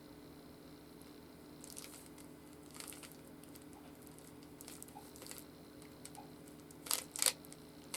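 Plastic Rubik's Cube being handled and twisted, giving scattered soft clicks and rustles, then two sharp clicks close together near the end.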